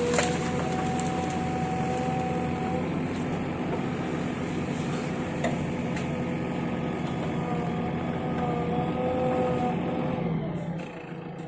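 Excavator's diesel engine running steadily under load, with two high whining tones over the engine hum and a few scattered clicks and knocks. About ten seconds in, the engine eases off and the whine drops in pitch.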